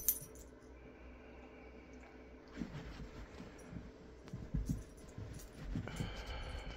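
Two dogs play-wrestling on a carpeted floor: soft scuffles and muffled thumps of bodies and paws, with a sharp knock right at the start.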